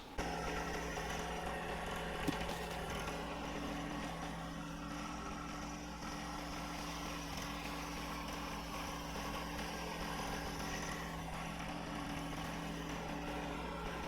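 An engine running steadily at constant speed, with one brief knock about two seconds in.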